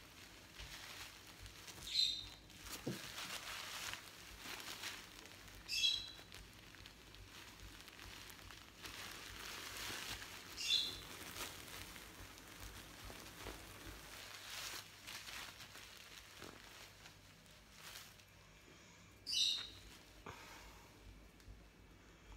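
Soft rustling of a cloth and a silicone baby doll being handled, with four short high-pitched chirps a few seconds apart.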